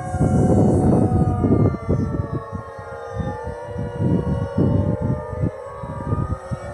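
Several distant outdoor tornado warning sirens, Federal Signal Thunderbolts and 2001s among them, sounding together in a drill test: overlapping steady tones that drift slowly in pitch, one sliding down in pitch over the second half. A low rumbling noise runs beneath them, loudest in the first two seconds.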